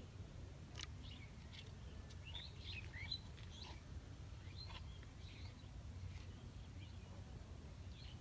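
Small birds chirping in short, scattered calls over a steady low outdoor rumble, with one sharp click about a second in.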